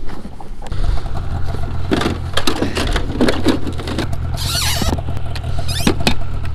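A vehicle engine running steadily with a low hum, with knocks and rattles over it and a brief high falling squeal about four and a half seconds in.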